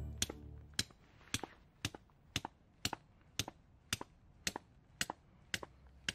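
Claw hammer tapping a metal tent peg into the ground: a steady run of short strikes, about two a second, many of them followed closely by a second lighter tap.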